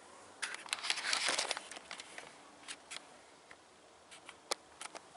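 Rustling and crinkling with a cluster of crackling clicks in the first second and a half, then scattered sharp clicks, one louder about four and a half seconds in.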